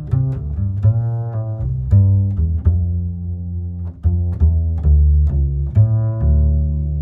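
Background music: a string-instrument tune of short, separate notes over a low bass line.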